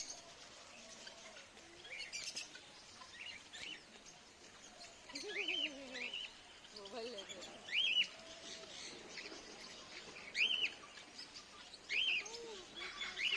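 Black swan calling: short, arched, high-pitched notes repeated every couple of seconds, starting about five seconds in. Fainter bird chirps and some lower gliding notes come between the calls.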